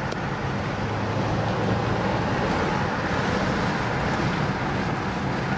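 A car's engine and tyre noise heard from inside the cabin while driving along a road at speed: a steady low hum under an even rush of road and wind noise.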